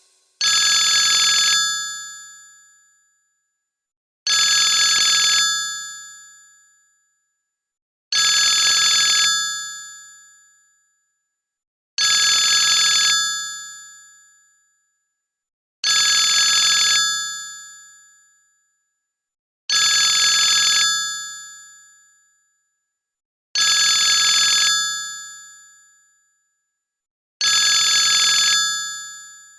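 A Sony Ericsson T610 ringtone in the style of a telephone bell. It rings eight times at an even pace, about every four seconds. Each ring is high-pitched, holds steady for about a second, then fades away.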